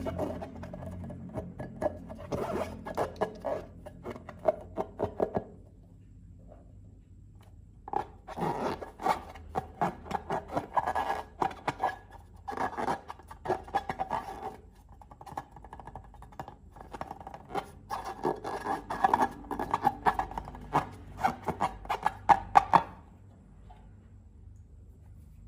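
Slime-making handling sounds: rapid scraping and sticky clicking as slime is worked, in two long runs with a short lull between them and a quiet stretch near the end.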